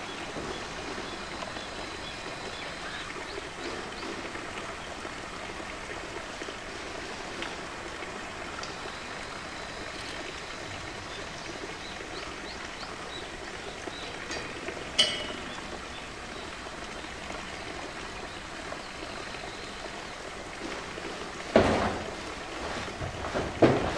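Steady rushing background noise, with a sharp click about fifteen seconds in and a few louder knocks near the end as a polar bear presses and shifts a blue plastic poly tank on concrete.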